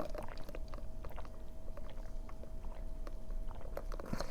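Close-miked chewing of a bite of burrito: a scatter of small mouth clicks and smacks.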